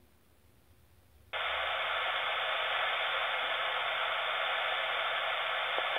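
Steady radio static from a Uniden scanner's speaker, playing back a narrowband FM recording that carries only noise. It starts abruptly about a second in and cuts off sharply at the end.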